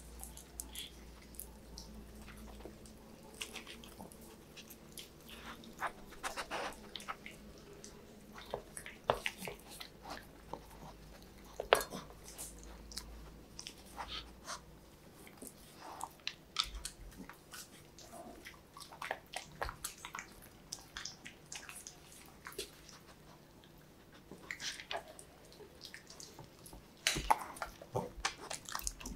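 Dogs eating chunks of carrot and broccoli off a steel plate: irregular wet chewing and biting, with sharp clicks and smacks. The sharpest click comes about 12 s in, and a busier spell of chewing comes near the end.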